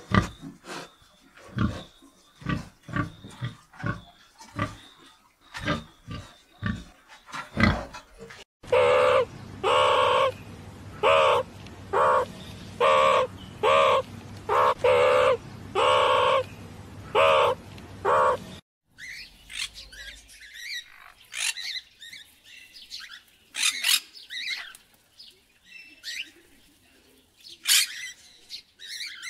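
Animal sounds from several different animals in turn. First a run of short, sharp grunts or clicks, then a loud pitched call repeated about once a second for about ten seconds, then scattered high chirps like birds.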